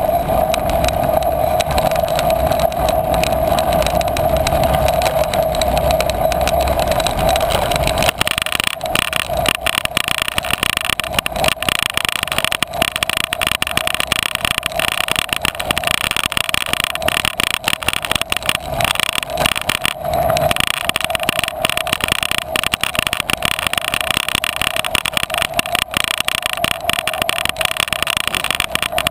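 Bicycle rolling over a bumpy sand and grass trail: a steady tyre hum with rapid rattling and clattering from the rough ground, which turns rattlier about eight seconds in.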